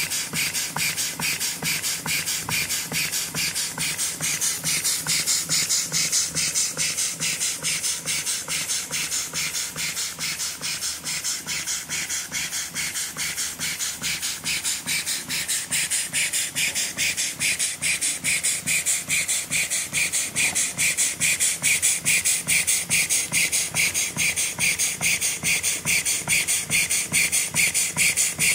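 Model walking-beam steam engine running steadily, its exhaust puffing in a fast, even beat of short hissing chuffs with a light mechanical beat beneath. The beat grows a little louder in the second half.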